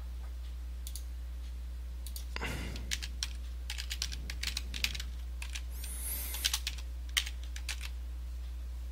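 Typing on a computer keyboard: irregular keystrokes starting about two seconds in and stopping shortly before the end.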